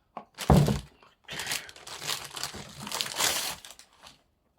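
Packaging being crumpled and torn open by hand: a short thump, then about two and a half seconds of dense crinkling.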